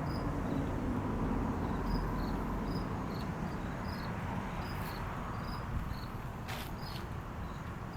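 Insect chirping, short high chirps about twice a second, over a steady low background rumble, with a couple of faint clicks near the end.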